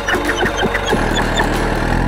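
Cartoon monster truck engine sound effect, a steady low idling hum that comes in about a second in, under light background music.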